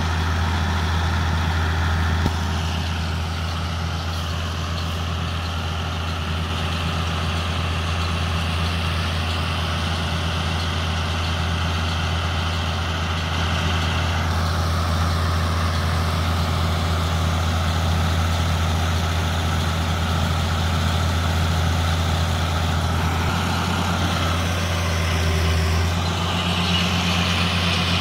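Fiat 1000 DT Super tractor's diesel engine running steadily while it pulls and drives a Gallignani 9300 round baler baling hay.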